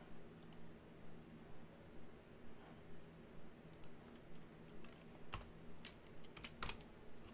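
Faint computer keyboard typing and clicks. There is a quick double click near the start, then scattered keystrokes that come faster in the last two seconds.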